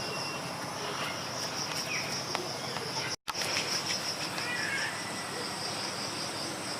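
Steady high-pitched insect chorus with a few short bird chirps over it; the sound drops out briefly about three seconds in.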